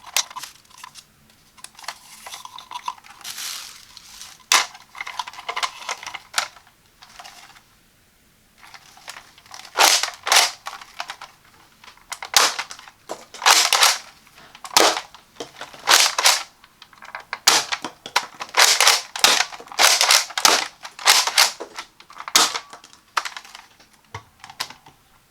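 Hard plastic toy blaster being handled and worked, a NERF Elite 2.0 Shockwave RD-15: repeated sharp plastic clicks and clacks. They come with some rustling early on, then grow louder and more frequent in the second half, often in pairs about a second apart.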